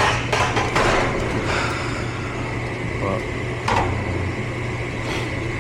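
Furnace motor running with a steady low hum and a thin high whine. Short clicks and rustles of a meter's test leads and tools being handled come in a cluster over the first two seconds and a few more times later.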